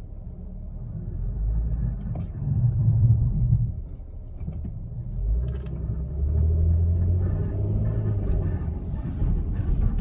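A 2012 Kia Sedona moving with its rear brakes making a low, rumbling brake noise, described as sounding terrible.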